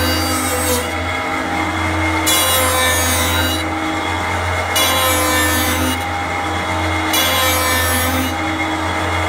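3-axis CNC wood lathe turning a wooden workpiece: a steady motor hum under repeated passes of the cutter shaving the spinning wood, each rasping pass lasting about a second and recurring every two seconds or so.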